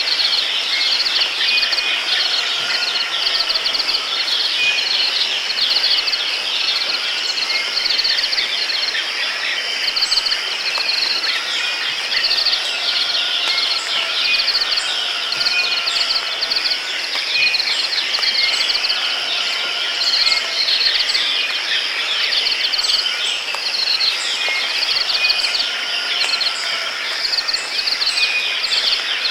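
Steady outdoor nature ambience: a dense chorus of insects chirping, with short repeated calls recurring every few seconds.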